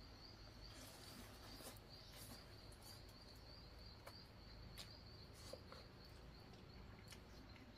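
Faint insect chirping: one steady high note repeated in an even pulse, several times a second, with a few faint clicks.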